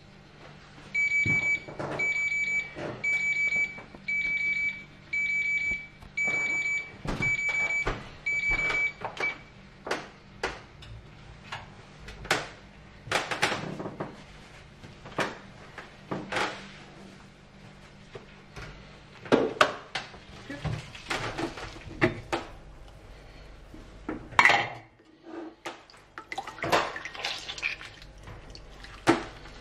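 An electronic kitchen alarm beeps about ten times, short high beeps a little under a second apart, then stops. Then come scattered knocks, clatters and rustles as the oven is opened and a hot baking tin and foil are handled.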